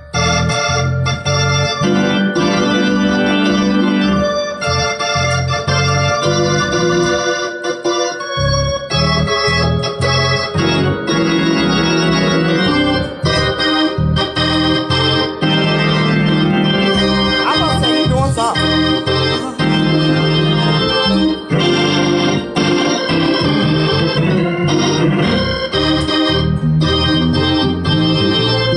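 A two-manual console organ played with both hands: sustained chords over moving bass notes, without a break.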